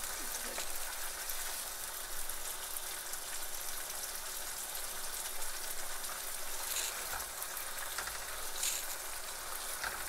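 Taro-stem curry simmering and sizzling in a wok: a steady hiss, with a few faint clicks.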